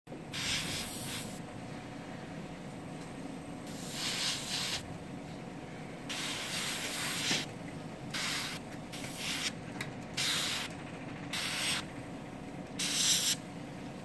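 Gravity-feed airbrush spraying metallic paint in short bursts of hiss. There are about eight bursts, each half a second to a second long, with pauses between them as the trigger is worked.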